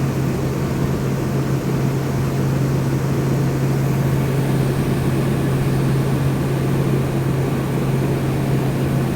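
A 1984/85 Emerson Quiet Kool 19,000 BTU window air conditioner running with only its fan, giving a steady low hum over a rush of air. Its rotary compressor is not running because the thermostat has not been tricked into calling for cooling.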